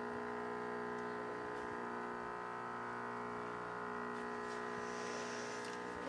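Nespresso Vertuo Plus coffee machine running at the start of a brew cycle: a steady electric hum that holds one pitch throughout.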